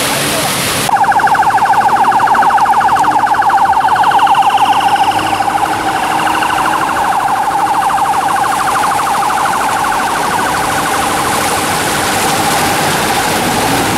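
Floodwater rushing out of a culvert for about the first second, then a police siren sounding a rapid warble. The siren is loudest for the next four seconds and quieter after, over a steady wash of vehicles driving through shallow floodwater.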